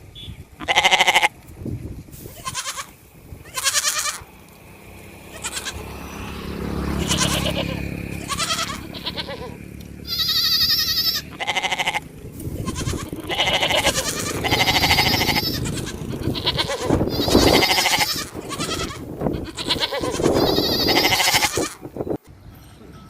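Sheep and goats bleating, a long run of separate calls one after another, some overlapping, which stop abruptly near the end.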